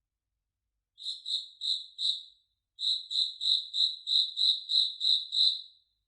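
Cricket chirping: short, high chirps at about three a second. Four chirps about a second in, a brief pause, then a run of nine more.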